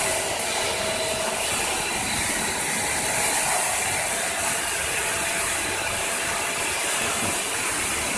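Crispy rice ball making machine running steadily: a constant high hiss with a faint steady whine under it.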